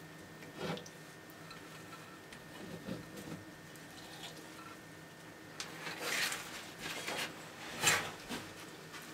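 Dumeril's monitor lizard eating, its jaws working the food with scattered wet clicks and crunches. Louder crackling bursts come about six and eight seconds in.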